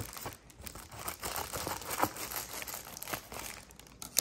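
Plastic bubble mailer crinkling and rustling as it is cut open with scissors and handled: a dense run of irregular crackles, with a sharper crack about two seconds in.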